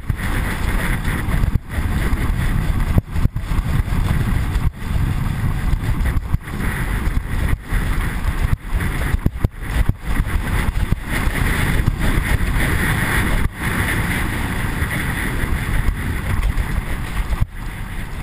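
Skeleton sled's steel runners sliding fast down an iced track, a loud steady rush of runner scrape and wind over a microphone riding on the sled, with brief dips in level throughout.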